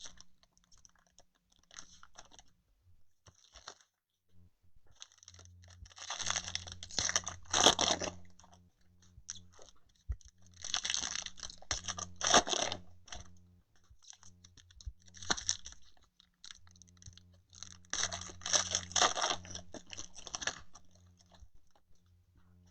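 Foil wrappers of trading card packs crinkling and tearing as the packs are opened and handled, in three bursts with small rustles and clicks between them.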